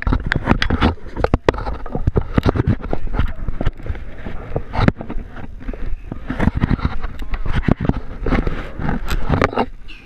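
Irregular scraping, rustling and knocking right at the microphone: the camera is rubbing and bumping against a knit glove and a wooden post.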